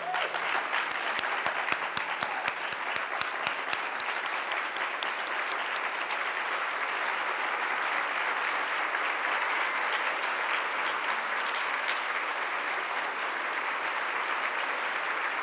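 Audience applauding. Sharp single claps stand out in the first few seconds, then it settles into even, steady applause.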